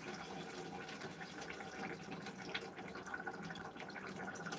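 A thin stream of water poured from a metal kettle into a cooking pot of sautéed green beans: a faint, steady trickle as a little water is added to the stew.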